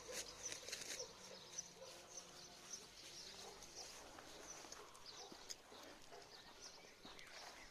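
Faint birdsong outdoors: many small birds chirping in short, scattered calls, with a few soft clicks in the first second.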